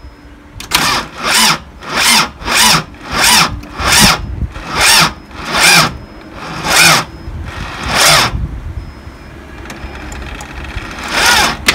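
Isuzu diesel engine's starter motor cranking slowly on a run-down battery: about ten laboured turns, each a short whirring pulse, coming further apart as the battery weakens, and the engine does not catch. One more short crank comes near the end.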